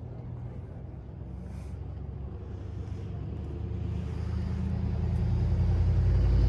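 A motor vehicle's engine drones low and steady, growing louder over the last couple of seconds as it draws nearer or picks up speed.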